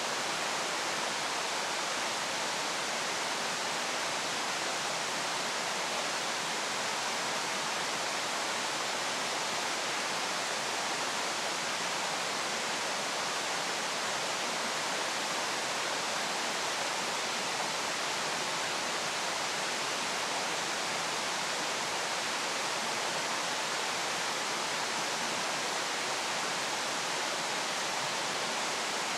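Steady, unchanging rushing noise, like running water, with no other events.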